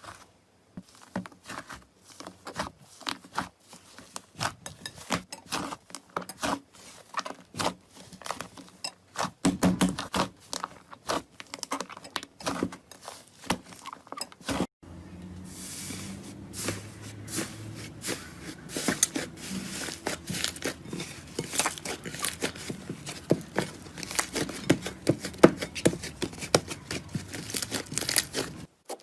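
Slime being squeezed, poked and stretched by hand, a dense run of small sticky crackles, clicks and pops. About halfway through there is a cut to another slime clip, with a steady faint hiss under the popping.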